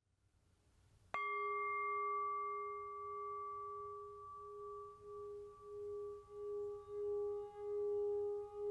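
Tibetan singing bowl struck once about a second in, then ringing on as one low tone with higher overtones. The ring settles into a slow, even pulsing wobble, a little under twice a second, that swells louder again toward the end.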